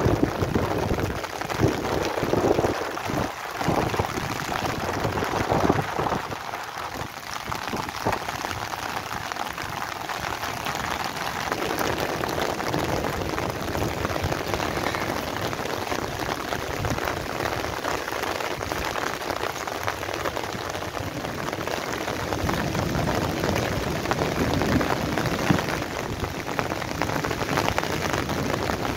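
Heavy rain falling steadily on a flat, wet concrete roof.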